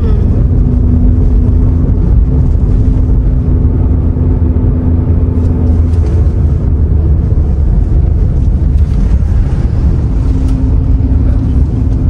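Moving vehicle heard from on board: a steady low rumble with an engine drone holding one pitch, which fades about six seconds in and returns near the end.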